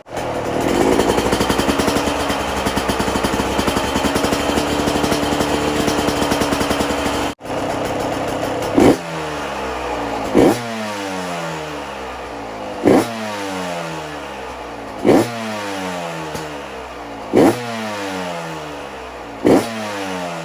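Yamaha YZ125X's 125cc two-stroke single-cylinder engine running through an FMF Factory Fatty expansion chamber and silencer. In the first part it revs up and holds raised revs. After a short break about seven seconds in, it idles and is blipped sharply six times, about every two seconds.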